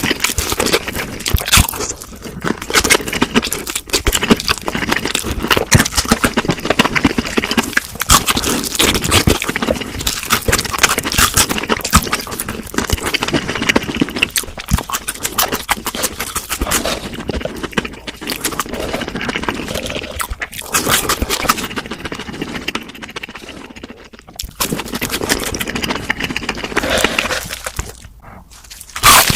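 Close-miked chewing and crunching of crispy fried food: a dense, irregular run of crackly bites and mouth sounds, dropping off briefly near the end.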